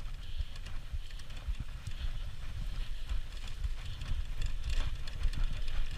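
Rumble and rattle of a dog-pulled kart's wheels and frame rolling over a bumpy dirt trail, with many small irregular knocks.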